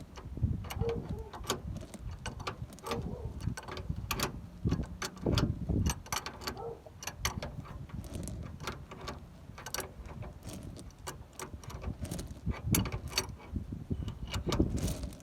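Wrench working a steering-rack mounting bolt under the vehicle: a dense run of irregular metallic clicks and clinks over a low rumble.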